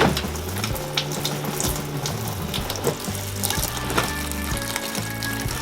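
Tap water pouring steadily into the tub of a twin-tub washing machine as it fills for a rinse, with background music.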